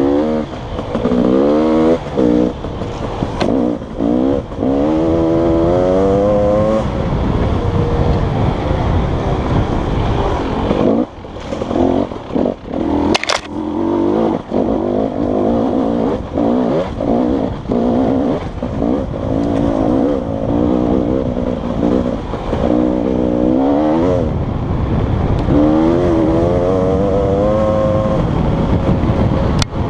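Dirt bike engine on a trail ride, revving up and easing off over and over, its pitch climbing with each burst of throttle. About halfway the revs drop briefly, with a sharp knock.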